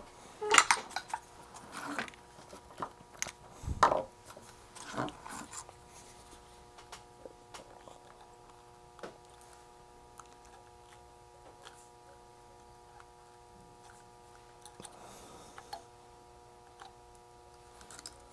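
Irregular clicks and light taps of small tools and electronic components being handled on a workbench during kit assembly, busiest in the first few seconds and thinning out later. A faint steady whine of several tones runs underneath.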